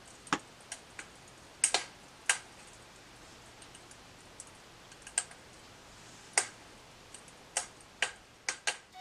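About a dozen sharp, separate clicks at irregular intervals over a faint hiss, with a lull in the middle.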